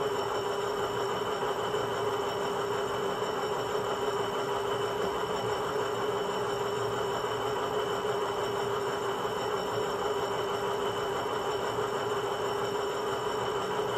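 Steady diesel locomotive sound from a Loksound 5 decoder in an HO scale WDG4 model, playing through the model's small speaker as the locomotive runs, with a strong steady tone and no change in level.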